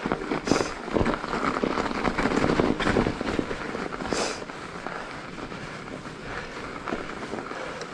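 Mountain bike rolling over packed snow: a steady crunching from the tyres, broken by scattered crackles and knocks, the sharpest about half a second, three and four seconds in.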